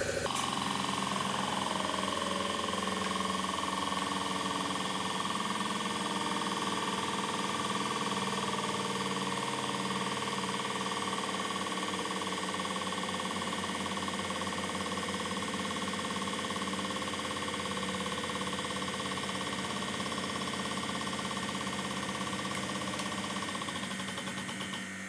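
Hydraulic press running steadily, its pump motor giving a constant hum as the ram slowly squeezes a plastic hard hat; a little quieter near the end as pressure starts to build.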